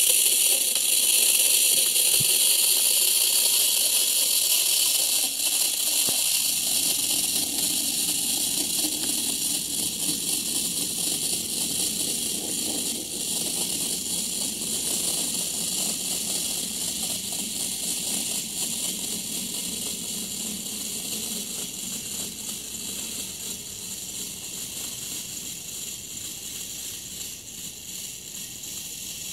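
Prewar Gescha tin clockwork sparking airplane running under its own spring: the clockwork motor whirring and the sparking mechanism scraping with a steady hiss, over the rumble of its wheels on a wooden floor. It grows gradually fainter as the toy rolls away and the spring runs down.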